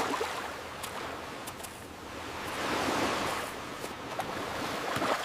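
Ocean surf washing in: a steady rush of waves that swells about halfway through and then eases off.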